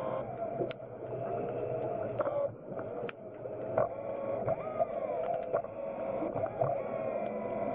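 BlueROV's electric thrusters whining, with steady tones and others that bend up and down as the thruster speed changes, and scattered sharp clicks.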